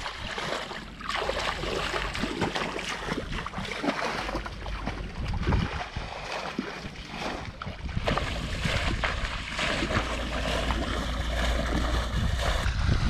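Muddy water splashing and sloshing as hands grope through a shallow pond, with wind noise on the microphone, heavier in the second half.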